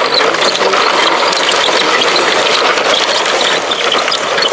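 Plastic gear mechanism of a Bruder toy construction vehicle being worked, a steady, dense, rapid ratcheting and grinding.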